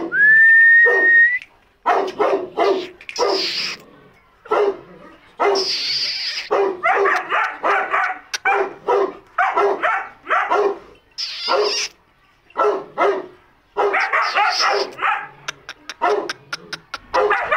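A dog barking over and over in quick runs, with short pauses about four and twelve seconds in. It opens with a loud, high whistle lasting about a second.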